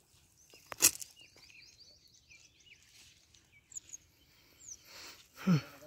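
A cast net with its weighted edge dropped onto a dry mud bank, giving one sharp knock about a second in, then small birds chirping in a quick run of short high notes. Near the end there is a rustling swish and a short low sliding sound.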